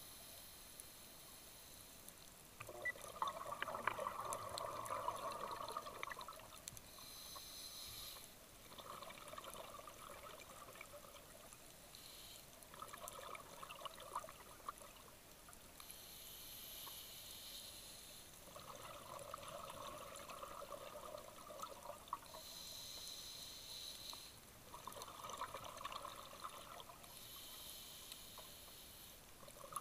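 Scuba regulator breathing underwater: slow, even breaths, each a hiss of drawn air followed by a rush of exhaled bubbles, about five breaths.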